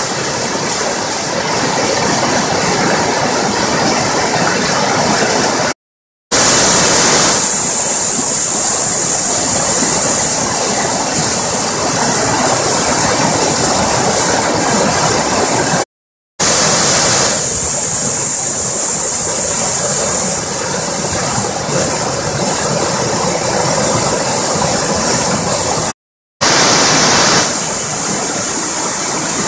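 A river in high flood rushing as white water through a mill's sluice openings and around a footbridge pier, loud and steady, broken three times by a brief dropout to silence.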